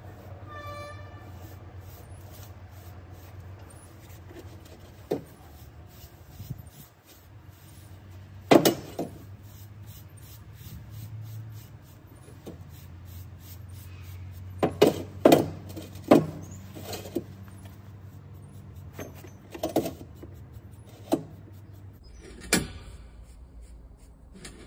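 Scattered sharp knocks and clicks of a rusty steel bar and a paintbrush being handled against a steel grating, a few of them loud. They sound over a steady low hum, with a brief high squeak just under a second in.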